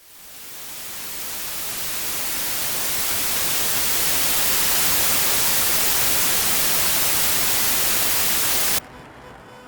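A loud, even hiss like static or white noise, swelling up from silence over the first few seconds, holding steady, then cutting off abruptly near the end.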